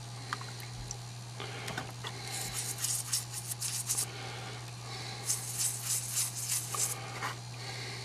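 Rapid scrubbing strokes on a small gilt metal button coated in naval jelly, in two bouts of about a second and a half each, over a steady low hum.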